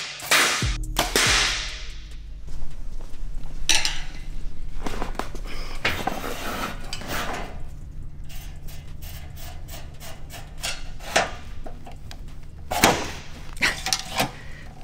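A Sirius Apollo carbon arrow with a Tuffhead Evolution broadhead being worked back out of a 17-gauge steel plate by hand. Irregular scrapes, clicks and knocks of the shaft and head against the steel as it is forced out, over a low steady hum.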